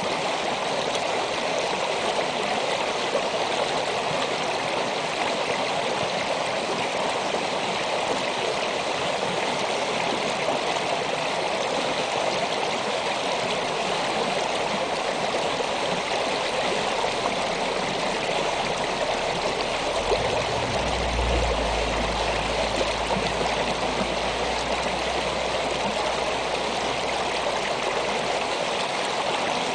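Small winter creek flowing over and around rocks: a steady, continuous rush of running water. About two-thirds of the way in, a low rumble joins underneath for several seconds, then fades out.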